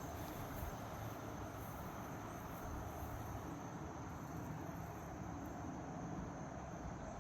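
Steady outdoor ambience with a continuous high-pitched insect trill in the background.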